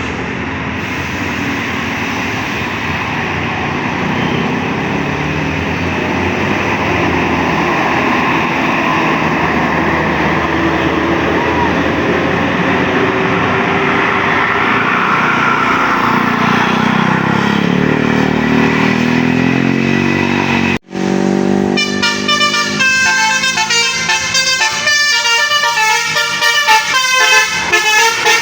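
Heavy bus engine and road noise for about twenty seconds, its pitch sliding down as a bus goes by. After a sudden cut, a bus's telolet basuri horn plays a fast melody of stepped notes to the end.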